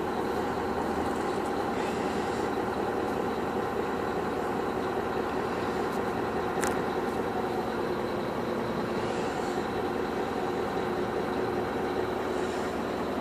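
Scania R620's 16-litre V8 diesel idling steadily after startup, heard from inside the cab. A single sharp click comes about halfway through.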